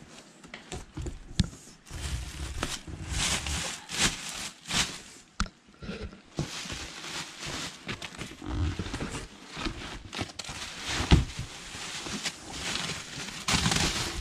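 Clear plastic wrapping crinkling and rustling as it is pulled off a new wheel inside a cardboard box, in irregular bursts, with a few sharp knocks, the loudest near the end.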